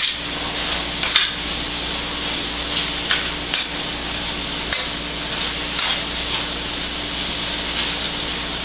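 Metal spatula stirring in a stainless steel skillet, clinking sharply against the pan about seven times, over a steady sizzle of sausage and sauerkraut frying.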